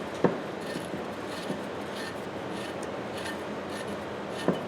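Gritty rubbing of a Ridgid pipe wrench's adjusting nut being turned along the hook jaw's long thread; the threads are caked with dry dirt and grime. A sharp click comes shortly after the start and another near the end.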